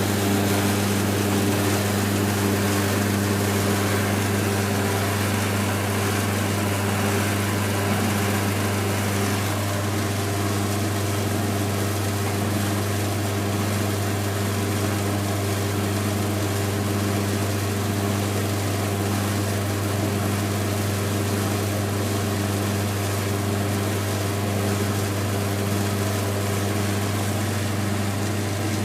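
Old domestic laundry machine running, its electric motor giving a steady, constant hum with no change in pitch or level.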